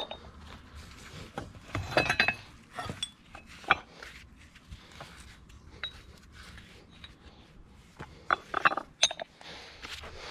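Scattered clinks and knocks of metal objects being picked up and moved about, with a cluster about two seconds in and another near the end.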